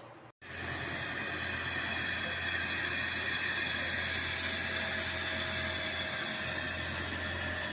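Outdoor condensing unit of a Midea Liva inverter air conditioner running steadily, a constant rushing hiss over a low hum, starting suddenly about a third of a second in. Its repaired control board, whose broken trace was remade, now runs the unit normally.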